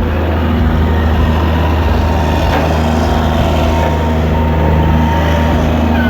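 Large engine running steadily and loudly with a low, even hum, the power plant of the Robosaurus car-crushing robot.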